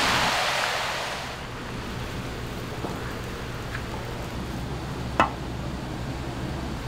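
Sizzle of wild greens tipped into a hot wok, dying away over the first second or so. Then a steady low kitchen hum with a few faint ticks and one sharp metal clink about five seconds in.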